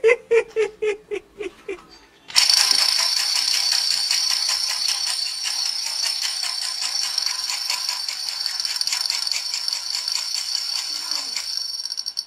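Toy pistol sound effects: a pulsing electronic tone that falls a little in pitch and stops about two seconds in. After a short gap comes a long, loud, high-pitched rattling buzz that cuts off near the end.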